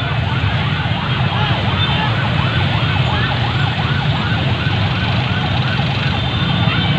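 A siren yelping, its pitch rising and falling about three times a second, over the steady running of a mass of idling motorcycle engines.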